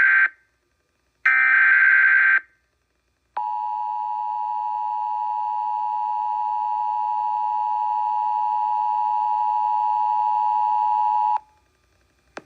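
Emergency Alert System alert signal. The tail of one harsh, chirping SAME data-header burst is followed by a second burst about a second in. Then comes a steady, slightly growing attention tone for about eight seconds before it cuts off, heralding a severe thunderstorm warning.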